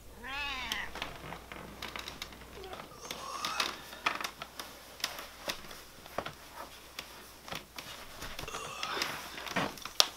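A short cat meow at the very start, then scattered soft clicks, taps and rustles as someone gets out of bed and shuffles their feet into plush slippers on a wooden floor.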